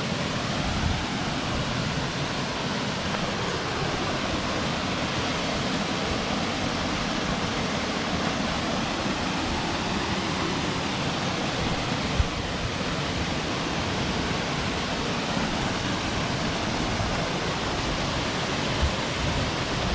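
Waterfall rushing, a steady, even roar of falling water, with one short knock about twelve seconds in.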